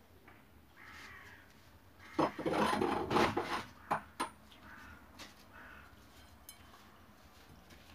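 Clattering and scraping of hard objects being handled, for about a second and a half, followed by two sharp knocks.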